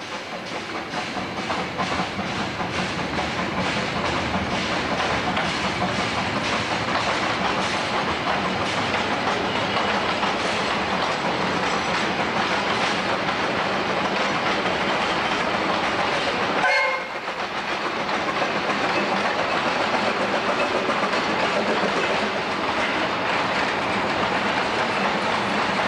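A narrow-gauge train of empty open coal wagons rolling past, wheels clattering over the rail joints, building up over the first few seconds and then holding steady. About 17 seconds in the sound breaks off abruptly, and a steam locomotive is then heard running past close by.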